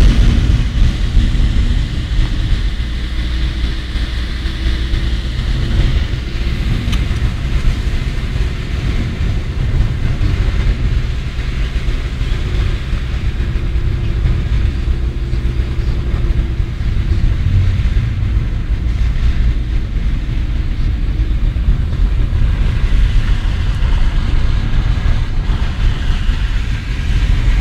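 Car driving on a road covered with hail and slush, heard from inside the cabin: a steady low rumble of engine and tyres.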